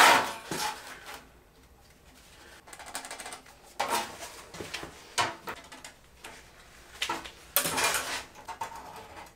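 Short bursts of metallic clattering and scraping as a ruler and marking tool are handled and set down on a thin steel sheet lying on a steel workbench, the sheet rattling. Three or four separate bursts with quieter gaps between.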